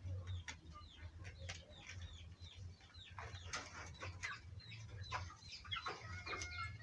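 Chickens clucking and birds chirping: many short, quick chirps over a steady low hum, with a few faint clicks.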